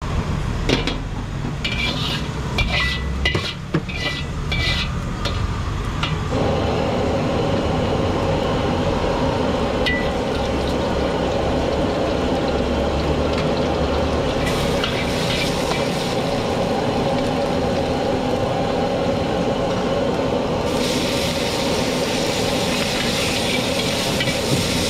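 Metal ladle clinking sharply against a wok several times over the steady low rumble of a gas wok burner, then oil and chopped garlic sizzling loudly in the hot wok from about six seconds in. The sizzle turns brighter and hissier near the end as raw beef goes into the wok.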